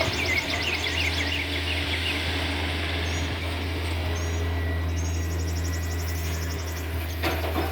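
Takeuchi TB153 excavator's diesel engine running steadily at a distance as a low drone. Birds chirp in the first couple of seconds, and an insect trills briefly later on.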